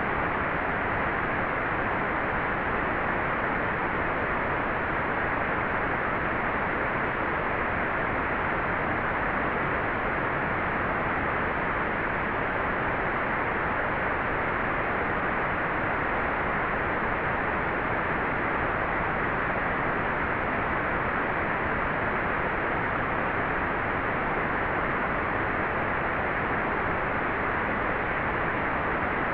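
Hair dryer running steadily: an even, unbroken rushing hiss that does not change.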